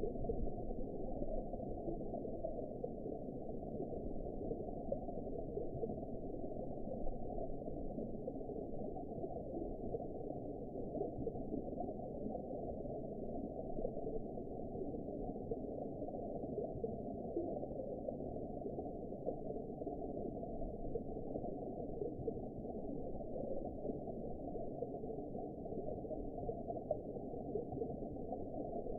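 Steady underwater ambience: a continuous muffled wash of low water noise with nothing above the low range. It goes on evenly, with no distinct events.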